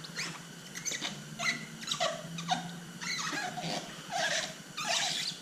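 Paint protection film squeaking as it is rubbed and pressed down onto the truck's panel: a string of short, irregular squeaks, each falling in pitch.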